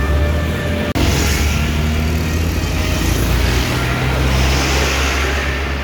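A tour bus engine running with a deep, steady rumble as the bus moves through the gate. There is a brief dropout about a second in.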